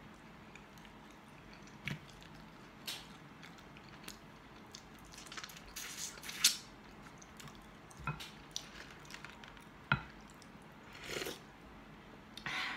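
Eating sounds: scattered wet lip smacks and sucking as cooked chicken meat is pulled off the bone with the mouth, with chewing between. Near the end a wooden spoon moves in a glass bowl of soup.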